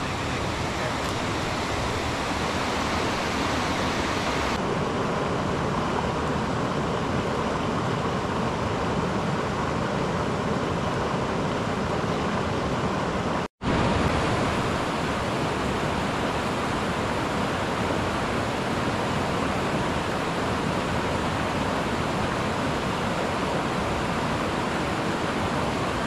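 Steady rushing of a mountain stream. There is a brief dropout to silence about halfway through, and then the rushing resumes.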